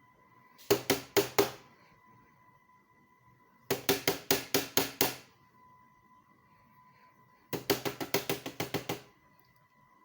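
Three bursts of quick knocking, each a run of several rapid knocks, the later bursts longer than the first, over a faint steady high tone.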